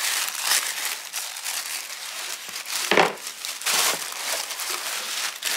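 Tissue paper crinkling and rustling as hands pull folded cotton fabric out of a gift box, with a sharper, louder crinkle about three seconds in.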